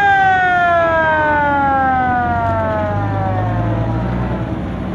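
A siren wailing once, already at its top pitch, then sliding slowly down in pitch over about four seconds and fading away, with a vehicle engine rumbling underneath.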